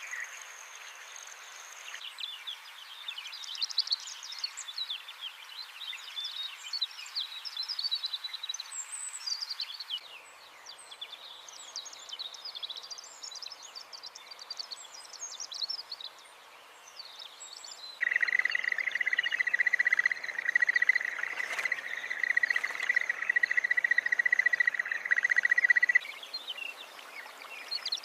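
Outdoor wildlife ambience: many small birds chirping and trilling. About two-thirds of the way in it switches abruptly to a steady, even insect buzz for several seconds, then the bird chirps return.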